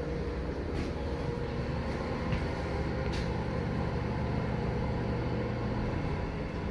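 Subway station passenger elevator travelling between levels: a steady low hum of the car in motion, with a couple of faint clicks.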